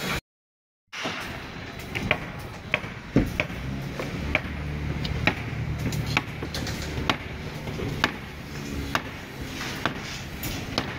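Rebar work on a construction deck: irregular sharp clicks and knocks, one or two a second, starting about a second in, over a low steady hum.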